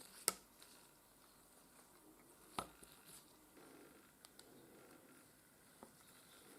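Near silence broken by a few small, sharp clicks, the loudest about a quarter second in and another about two and a half seconds in: small tools and parts being handled while an Omega 1012 watch movement is serviced.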